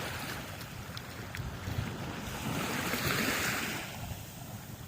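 Indian Ocean waves washing onto the beach, one wave surging up about halfway through and fading away near the end, with wind rumbling on the microphone.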